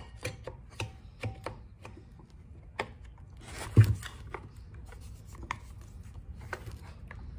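Plastic clutch housing being worked onto a Stihl trimmer's engine by hand: hard plastic clicking and scraping against the engine housing, with one louder knock about four seconds in.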